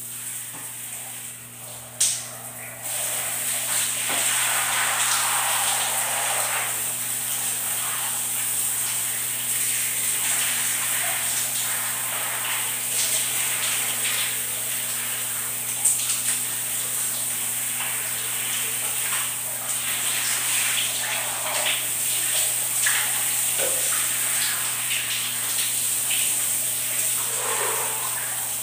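Shower water spraying down onto a person and a tiled floor: a steady hiss that comes up louder about three seconds in, just after a sharp click.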